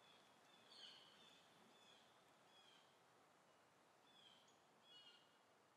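Near silence, with faint, short high bird chirps a handful of times.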